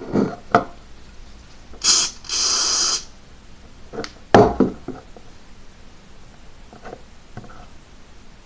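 Aerosol disinfectant spray can hissing: a short burst about two seconds in, then a steady spray of under a second. A few short soft knocks or squelches come before and after it.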